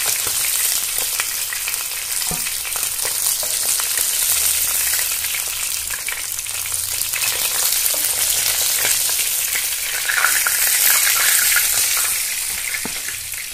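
Whole bata fish shallow-frying in hot vegetable oil in a pan: a steady sizzle with spitting crackles, and a few light clicks of a spatula as the fried fish are lifted out.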